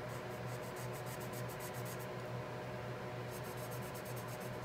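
Ohuhu alcohol marker tip stroked quickly back and forth across paper while coloring: two runs of fast scratchy strokes, about eight to ten a second, with a short pause between them. A steady low electrical hum runs underneath.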